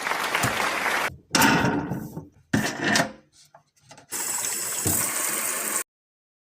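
Water rushing and spraying in four short stretches, each cut off abruptly. The last stretch is the most hissing, and then the sound stops dead.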